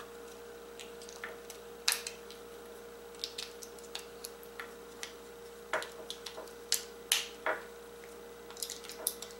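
Irregular small clicks and light plastic knocks of AA batteries being fitted into a plastic receiver battery holder, over a steady faint hum.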